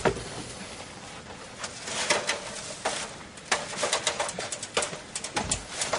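Irregular short crunches and knocks: footsteps in packed snow, then a person climbing an aluminium ladder, the knocks coming thicker in the second half.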